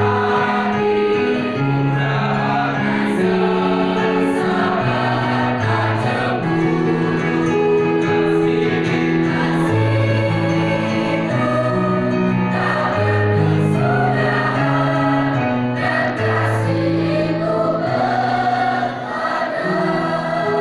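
Mixed choir singing a hymn in several held parts, sustained chords moving from note to note.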